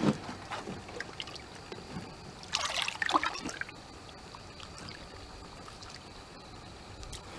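Water splashing and trickling as a large catfish is held by the mouth in the water at the boat's side to be released, with a short burst of louder splashing about two and a half seconds in.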